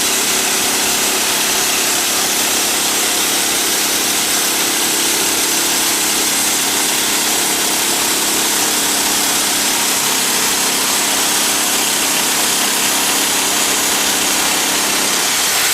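Wood-Mizer portable band sawmill running steadily under power, its engine and band blade sawing through a log. The engine's low hum drops away near the end while the high sawing hiss carries on.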